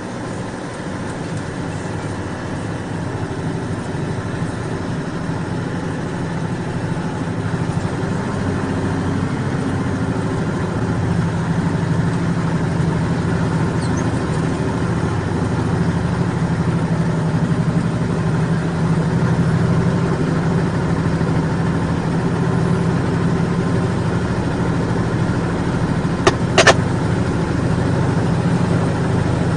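Heavy truck's diesel engine labouring steadily under a 64,000 kg load on an uphill climb, slowly getting louder. Two sharp clicks near the end.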